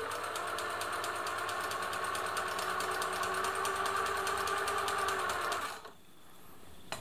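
Singer 766 sewing machine running at a steady speed, stitching a short zigzag, with an even rapid rhythm of needle strokes; it stops about a second before the end.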